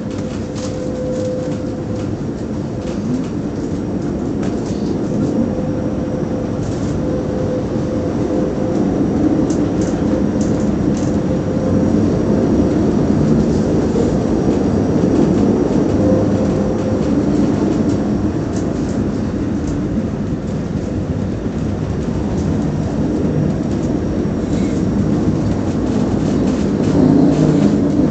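Trieste–Opicina metre-gauge tramcar running, heard from inside the passenger cabin: a continuous rumble of wheels and running gear, slowly growing louder, with a faint steady whine for about the first half and scattered light clicks.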